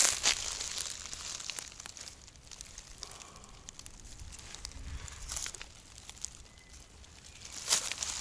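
Close rustling and crackling, loudest at the start and again near the end, with a quieter stretch between.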